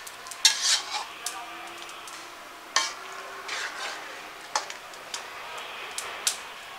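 Metal spatula scraping and knocking against a large metal wok as a chunky curry is stirred, about ten short strokes in all. Under them runs a steady hiss from the simmering curry.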